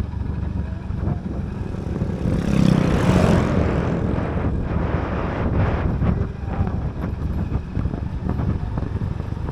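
Motorcycle engine running steadily while riding, a low rumble with wind on the microphone, and a louder rush of noise about two and a half seconds in that fades within a second.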